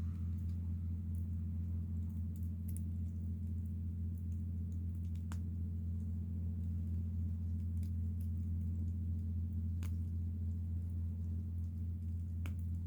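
A few sharp crackles from a wood bonfire, spaced several seconds apart, over a steady low hum.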